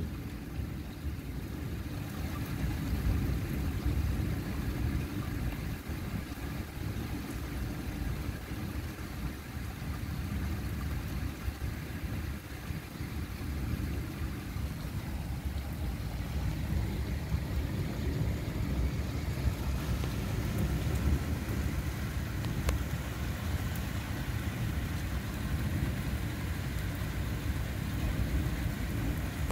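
Thunderstorm heard as a steady low rumble of distant rolling thunder, with a faint hiss above it and no sharp cracks.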